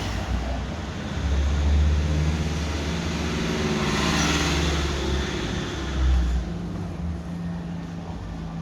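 Low engine rumble of a motor vehicle with a steady hum, swelling to a peak about four seconds in and easing off after about six seconds, like a vehicle passing by.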